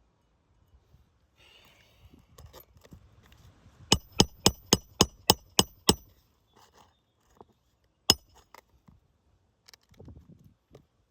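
Hammer striking a roofing nail on asphalt shingles: eight quick ringing blows about four a second, then one more blow about two seconds later.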